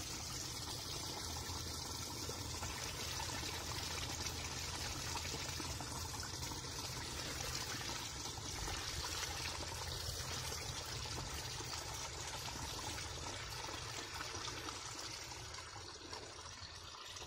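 Small rocky stream trickling and splashing over stones, a steady rush of water that fades a little near the end.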